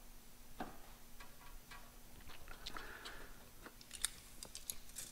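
Faint, scattered clicks and light metal-on-metal taps of hand tools working a caster/camber plate on the strut tower, with a few sharper ticks near the end.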